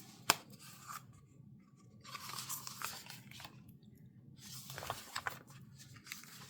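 Paper and sticker sheets crinkling and rustling as they are handled, with a sharp tap just after the start and a few small ticks in the rustling.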